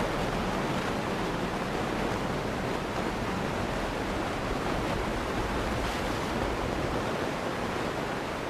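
Steady road and wind noise of a car driving on a snowy road, heard from inside the car through a dashcam microphone: an even rushing hiss with no distinct events.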